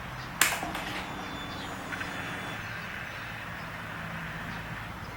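A KTM 690 being started, slow to fire: a sharp click about half a second in, then a steady low mechanical hum.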